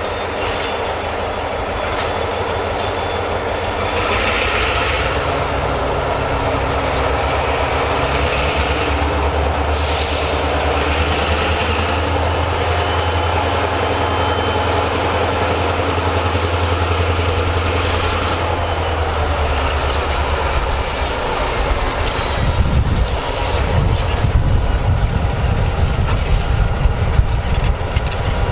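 Diesel freight train passing: the locomotive's engine drone swells and fades, with a thin high-pitched whine gliding up and back down in pitch. In the last few seconds the cars' wheels clatter over the rail joints.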